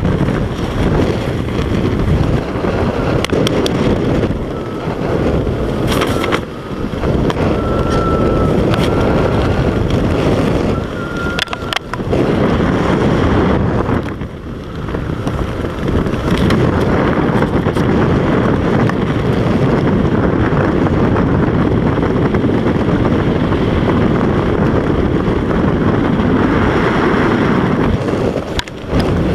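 Steady loud wind rushing over the camera microphone during a tandem skydive, with a few brief dips.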